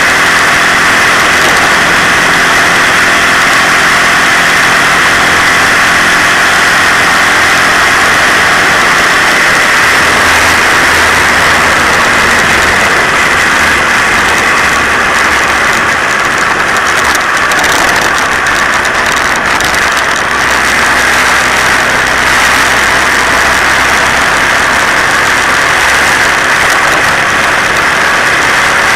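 Moped engine running steadily while riding, with a strong hiss of wind and road noise. The engine note eases off a little about halfway through.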